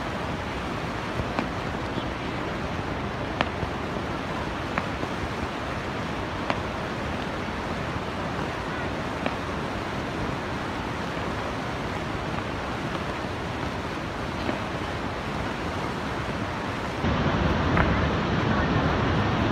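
Steady rushing roar of Niagara Falls, with a few faint, scattered pops and crackles of distant fireworks. The roar grows louder about three-quarters of the way through.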